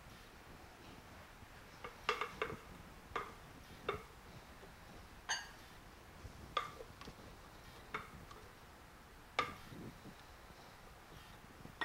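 Glass batter jug and glass mixing bowls clinking and knocking together, with a rubber spatula scraping the jug, as batter is poured out into the bowls. About a dozen short, faint clinks at irregular intervals, one about five seconds in ringing briefly like glass.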